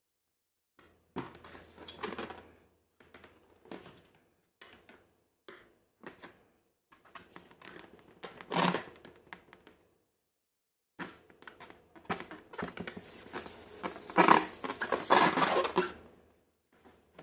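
Close-up ASMR handling of slime-making materials: intermittent squishy, crackly bursts of sticky material being worked by hand, with a short pause about two-thirds through and the loudest stretch near the end.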